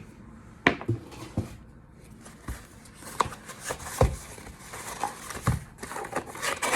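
Candles and their packaging being handled: a string of separate sharp taps and knocks, with rustling that builds in the second half.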